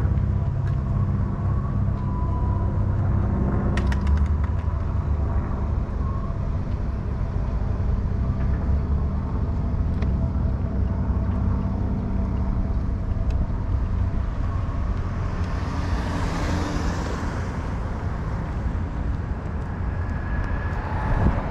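Steady low rumble of vehicle and road noise, with a rush of noise that swells and fades about two-thirds of the way through.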